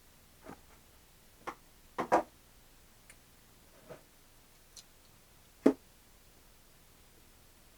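Scattered light clicks and taps from hands handling small plastic parts and tools while fitting the plane's pushrods, about eight in all, with the loudest about two seconds in and just past the middle, then a quiet stretch to the end.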